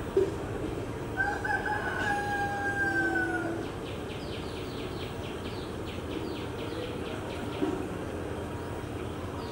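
A rooster crowing once, one long crow starting about a second in and dropping in pitch at its end. A brief knock comes right at the start and another near the end, and a rapid high-pitched pulsing starts after the crow.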